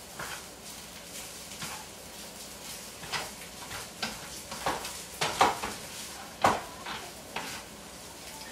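A utensil stirring rice in a frying pan, scraping and knocking against the pan at irregular moments, busiest and loudest around the middle. A faint steady hiss runs underneath.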